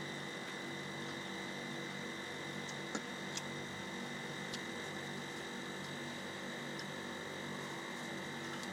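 Steady electrical hum and hiss, with a few faint clicks about three and four and a half seconds in.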